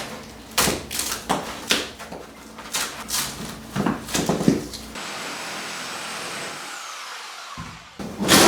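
Knocks, bangs and clattering of kitchen cabinets and trim being pried and torn out, several sharp hits a second. About five seconds in the hits give way to a steady hiss with a faint high whine.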